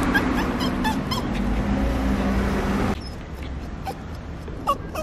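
Cairn Terrier whining and whimpering in short, high-pitched cries, several in quick succession at first and a louder whine near the end, as it frets while its owner is away. Under it a steady background rumble drops off sharply about three seconds in.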